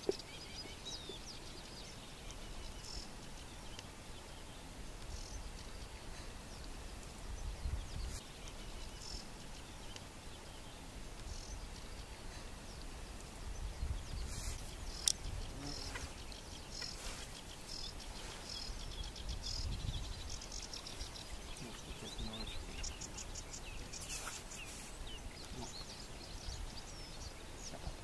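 Open-air meadow ambience: small birds chirping and calling again and again, with a low rumble of wind on the microphone that swells in gusts. Two sharp clicks stand out, one at the very start and a louder one about halfway through.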